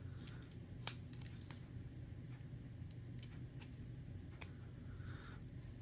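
Small plastic-and-metal clicks and taps as a precision screwdriver bit is pushed into the driver's bit holder and handled, testing its friction fit; one sharper click about a second in.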